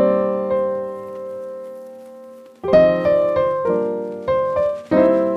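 Background music played on a piano-like keyboard: a chord struck at the start rings out and fades for over two seconds, then new chords follow about every half second.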